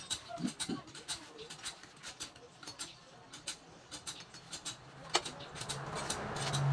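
Scattered light metallic clicks and taps as an air-conditioning hose and its fitting are handled and set in a hose-crimping machine. A sharp knock comes about five seconds in, then a low steady hum builds near the end.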